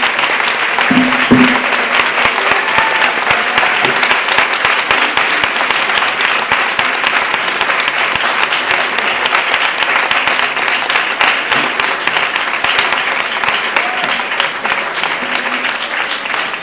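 A roomful of people applauding: dense, steady clapping that eases off slightly near the end.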